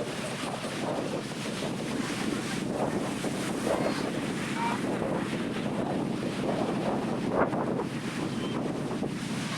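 Ocean surf washing onto the beach, a steady rush of waves, with wind buffeting the microphone.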